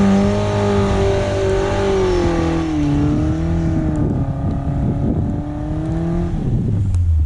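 Suzuki SJ410's engine running hard at steady revs. Its pitch sags a little two to three seconds in and drops sharply to a low note near the end.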